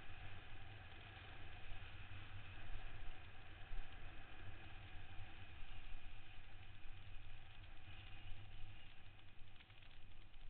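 Wind buffeting the microphone of a helmet camera on a downhill mountain bike running fast down a dirt trail, with the uneven rumble of the tyres on the rough track.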